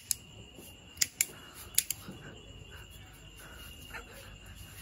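Crickets chirping in one steady high tone, with a few sharp clicks in the first two seconds.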